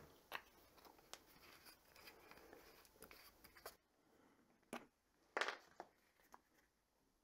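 Near-silent small room with a few faint clicks and, about five seconds in, a brief scrape or rustle of something being handled.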